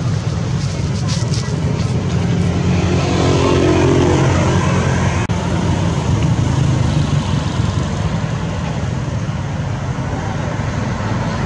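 A steady engine hum, like a motor vehicle running close by, swelling a little about four seconds in.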